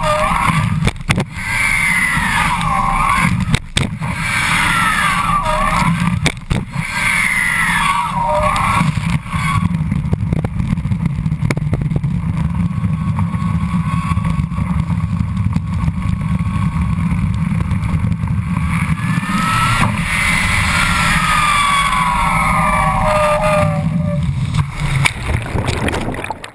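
Slalom water ski cutting through the water at towing speed, with rushing spray and heavy wind buffeting on a microphone mounted at the ski tip, and scattered knocks. A whine rises and falls every couple of seconds as the ski swings through its turns. It cuts off sharply at the very end.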